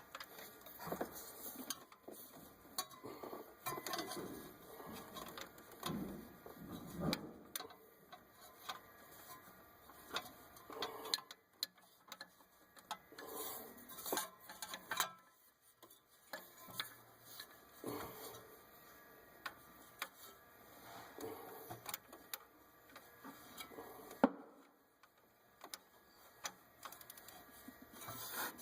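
Faint, irregular ratchet-wrench clicking and metal tool clinks as the engine is turned over by hand to roll a stretch-fit power steering belt onto its pulley. One sharper click comes about three-quarters of the way through.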